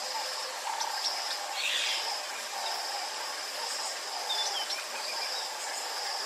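Natural bush ambience: a steady high insect trill with a lower pulsing chorus underneath, and short bird chirps and calls over it. A brief rasping hiss about two seconds in.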